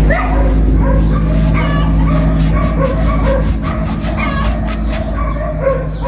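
A dog whining and yipping in short, rising cries, again and again, over a steady low hum.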